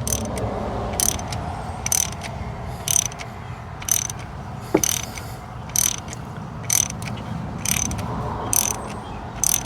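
Ratchet wrench clicking in short bursts about once a second, backing a greased thread tap out of an aluminium spark plug hole in the cylinder head so the grease carries out the cutting shavings.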